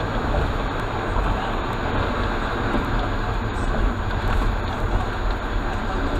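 Steady road and engine noise inside a moving car's cabin, picked up by a dashcam.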